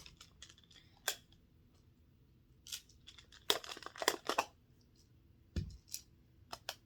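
Plastic magnetic building tiles being handled and snapping together, a scattering of sharp clicks and clacks, with a dull thump about five and a half seconds in.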